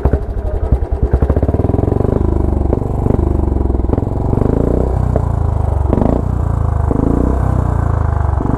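Royal Enfield single-cylinder motorcycle with an aftermarket silencer running just after starting: loud, separate firing beats at first, settling after a second or so into a steadier but uneven idle. The engine has been stalling and misfiring since the crash, and the rider says it only runs normally above a certain rpm.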